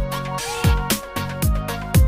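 Electronic music with a steady beat: deep kick-drum hits, sharp hi-hat ticks and held synth tones.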